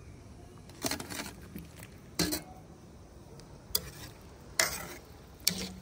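Eating utensils clinking and scraping against dishes, five short sharp clatters a second or so apart.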